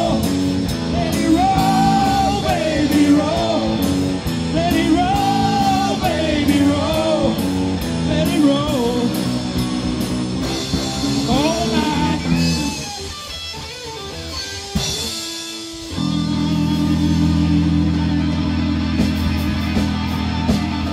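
Live blues-rock band with electric guitars, bass and drum kit playing, a melodic line bending up and down over a chugging rhythm. About 13 seconds in the band drops back and thins out. Near the end it comes back in full on a long held chord, with cymbals washing over it.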